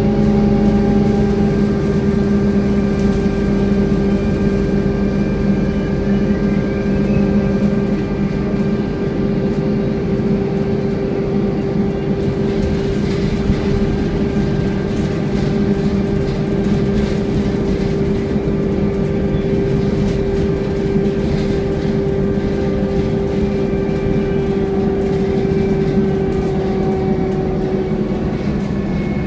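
Scania N230UD double-decker bus running at a steady speed with a steady whine, the "hoovering" sound, over engine and road noise. The whine dips slightly in pitch near the end.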